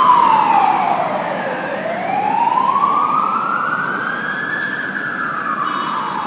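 Fire truck siren wailing. The pitch slides slowly down for about a second and a half, climbs for about three seconds, then falls again near the end.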